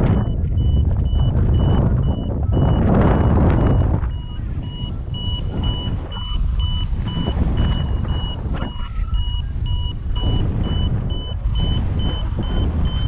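Paragliding variometer beeping in quick regular pulses, about three to four beeps a second: the climb tone signalling the glider rising in lift. Gusty wind rushes loudly over the microphone beneath the beeps.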